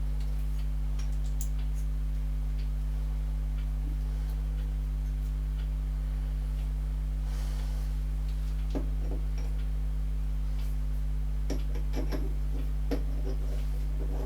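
A steady electrical hum, with light clicks and small metal taps scattered over it, several of them in the second half.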